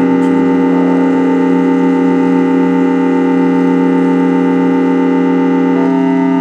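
Small portable keyboard organ holding a sustained chord, which shifts to a new chord near the end.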